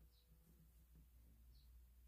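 Near silence: room tone with a steady low hum and two faint, short high-pitched blips.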